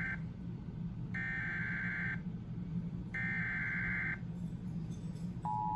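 Emergency Alert System SAME header data bursts: the end of the first and then the second and third warbling digital tone bursts, each about a second long with a second's gap between them, encoding a severe thunderstorm warning. About five seconds in, the EAS two-tone attention signal starts as a steady dual tone, over a low hum.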